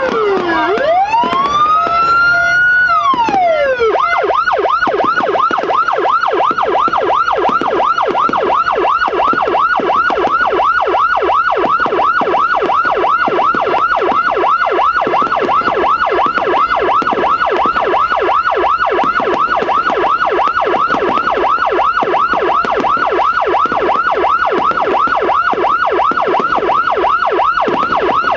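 Electronic police-escort (patwal) siren, a multi-tone siren module through a 10–15 W TOA speaker, sounding loud. It makes a slow falling-then-rising wail for about three seconds, then switches to a fast, steadily repeating yelp.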